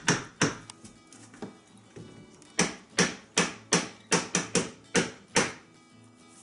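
Metal utensil knocking against the sides of a stainless steel stockpot while stirring a thick mashed potato and cheese filling: a few knocks, a short pause, then a quick irregular run of about ten knocks, two to three a second, that stops near the end.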